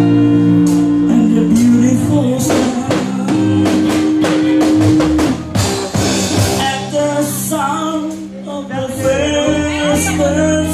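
A live rock band playing: electric bass guitar holding low notes and a drum kit, with a voice singing over them in the second half.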